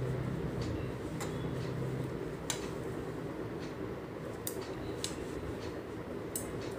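Metal knitting needles clicking and scraping irregularly as stitches of fabric strip are worked. A low hum fades out about two seconds in.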